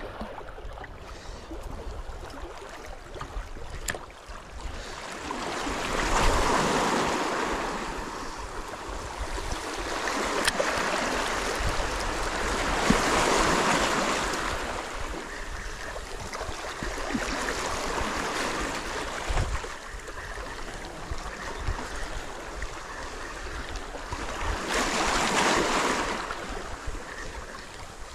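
Sea waves surging in and washing against shore rocks, swelling loud three times over a steady rush of water.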